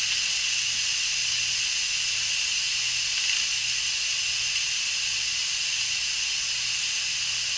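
Instant Pot pressure-release valve hissing steadily as steam vents during a quick release after pressure cooking. It is spitting a little water with the steam, which the cook puts down to too much water in the pot.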